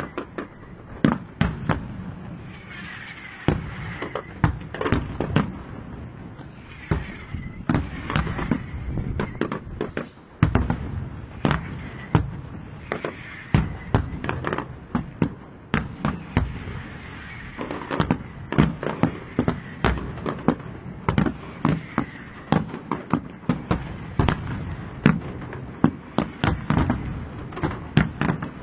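Aerial firework shells bursting one after another, dozens of sharp bangs at irregular, close intervals with crackling between them, coming thicker toward the end.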